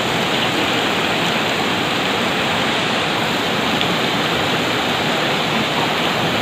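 Rushing river water, a steady, even rush that does not change.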